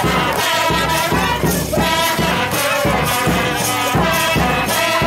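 Music with a steady beat and a sustained melody line.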